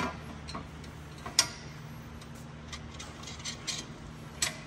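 Scattered light metallic clicks and clinks of steel nylon-insert lock nuts being handled and spun by hand onto carriage bolts through a steel plate, over a low steady hum.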